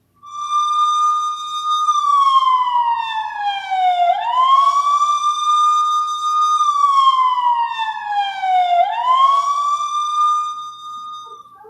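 Police siren in a slow wail: the tone holds high for about two seconds, slides down over about two seconds, then sweeps quickly back up, repeating twice, and cuts off near the end.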